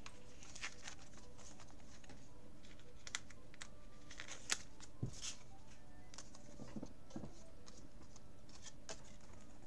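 Clear plastic binder sleeve pages rustling and crinkling as cards are slid into the pockets, in scattered short rustles and clicks.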